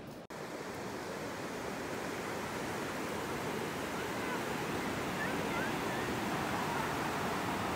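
Sea surf breaking and washing up a flat sandy beach: a steady rushing that swells slightly louder over the seconds.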